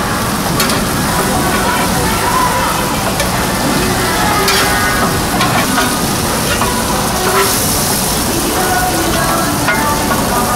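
Beef makchang (grilled entrails) with onions and green onions sizzling steadily on a flat griddle, stirred and tossed with a wooden spatula and metal scraper that scrape and knock against the plate a few times.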